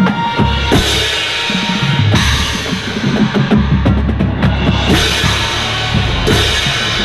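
Drum corps percussion playing, with a pair of Zildjian hand cymbals crashed close by four times, each crash ringing on, over bass drum hits and other percussion.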